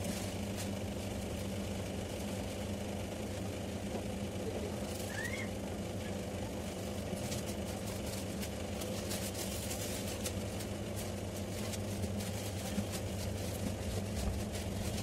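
Steady low mechanical hum, as of a motor running, with scattered light clicks and a short rising squeak about five seconds in.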